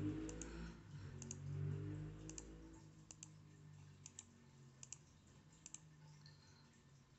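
Faint double clicks of a computer mouse, about one press-and-release pair a second, as pages are clicked through on the screen.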